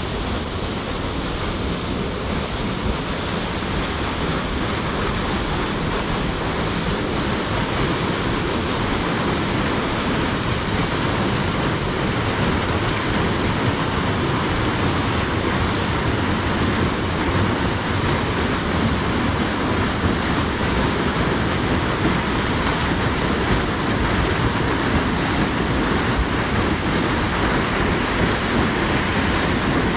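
Steady roar of a waterfall, slowly growing louder.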